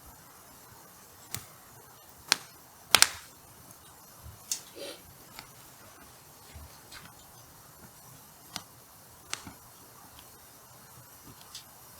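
Hardwood firewood burning and crackling, with sharp pops at irregular intervals; the loudest is a quick double pop about three seconds in.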